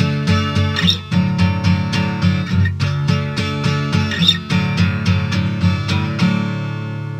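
Instrumental song outro: a guitar strumming chords at a steady beat, ending on a last chord that rings out and fades from about six seconds in.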